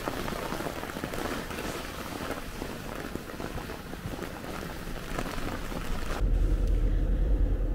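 Rain falling during a night thunderstorm, a dense even hiss with many small ticks. About six seconds in it cuts to a steady low rumble.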